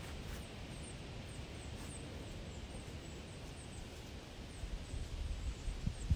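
Wind buffeting the microphone: a low, uneven rumble that swells and gusts harder toward the end, with faint, short high chirps over it.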